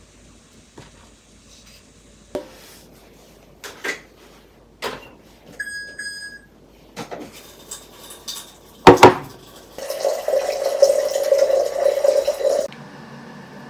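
Kitchen tabletop handling: a glass jar and a cardboard box are moved and set down with scattered clicks and knocks. A short electronic beep comes about six seconds in and a loud clink about nine seconds in. This is followed by about three seconds of steady rushing noise that stops abruptly.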